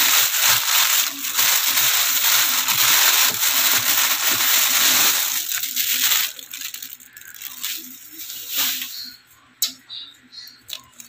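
Plastic produce bags rustling and crinkling loudly as a hand digs through them and pulls one out; about six seconds in, the rustling drops to lighter crinkles and taps.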